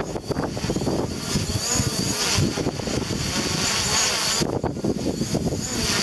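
Strong wind buffeting the microphone in gusts, over the whine of a DJI Mavic Pro quadcopter's propellers as it hovers overhead in the wind.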